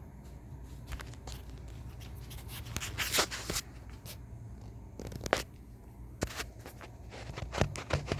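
Scattered clicks and short rustles of something being handled close to the microphone, over a steady low hum. The clicks come in clusters about three seconds in and again near the end.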